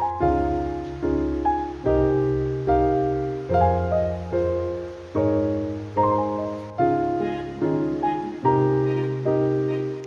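Background piano music: gentle chords struck a little more often than once a second, each fading away before the next.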